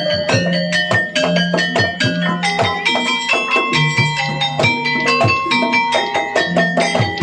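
Gamelan accompaniment for a kuda kepang dance: struck metal keys ringing out changing pitched notes over low drum strokes in a quick, steady beat.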